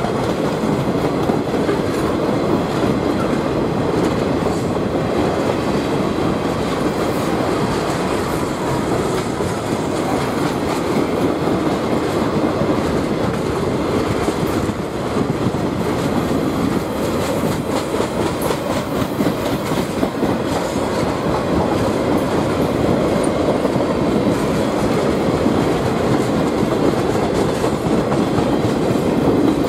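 A long string of loaded sugarcane hopper cars rolling past on the rails. It makes a steady rumble of steel wheels with repeated clicks of the wheels over the rail.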